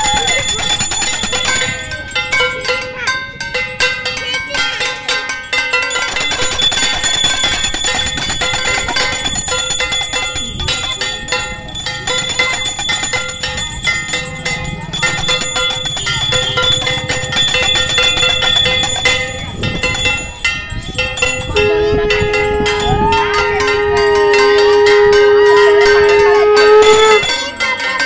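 Brass puja hand bell rung continuously, a rapid ringing. About three-quarters of the way through, a loud, steady held tone joins it and grows louder, breaking off briefly near the end.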